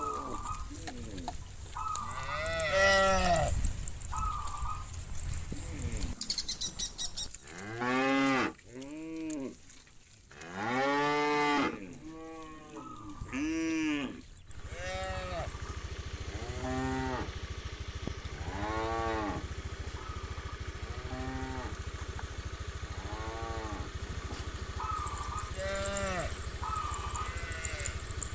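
Cattle mooing again and again, a herd calling with long drawn-out moos, several of them loud, over a steady low hum.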